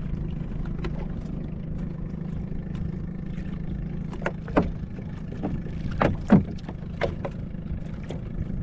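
A handful of sharp knocks and taps as a sabiki fishing rig is handled in a small fishing boat, the loudest about six seconds in. A steady low drone runs underneath.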